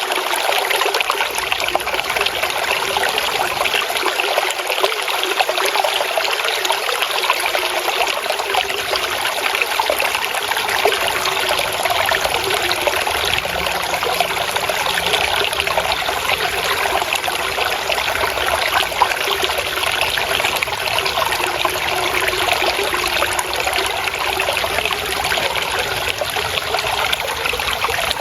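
Flowing water trickling and splashing steadily, an even, unbroken rush of water.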